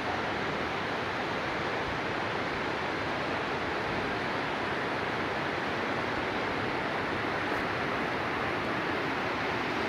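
Fast-flowing Kunhar river rushing over rocks and stones in a steady, unbroken rush.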